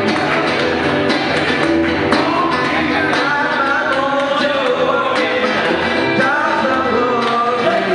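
Live blues band playing: electric guitar and drums, with a man singing and a harmonica.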